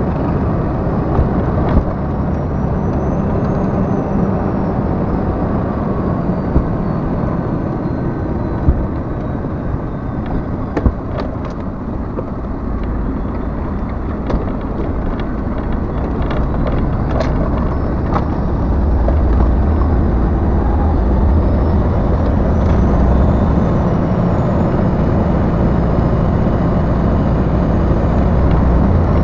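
Heavy truck's diesel engine running and its tyres on a rough dirt road, heard inside the cab, with scattered knocks and rattles. The engine rumble grows louder about two-thirds of the way through.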